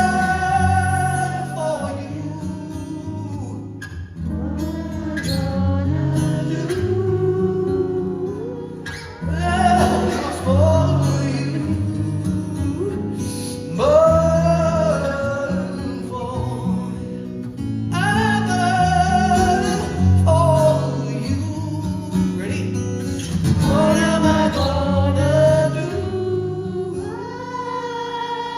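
Live rock band playing a ballad, with guitars and bass and a bending lead melody line over them. It comes in sharply right after a count-in.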